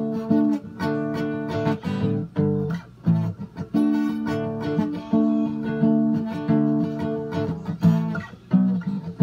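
Acoustic guitar strummed in chords as an instrumental passage, with the strokes coming in an even rhythm.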